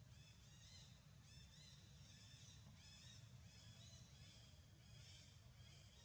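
Faint, repeated high chirps from small birds, about two or three a second, over a low steady hum.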